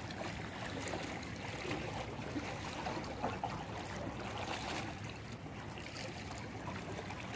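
Sea water washing steadily against and among rocks.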